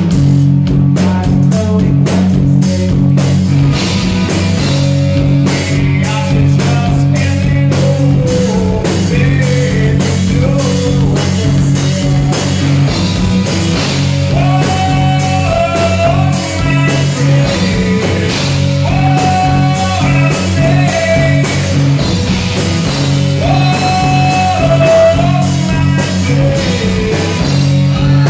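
Live rock band playing: electric guitars, bass and a steady drum-kit beat, with a man singing lead.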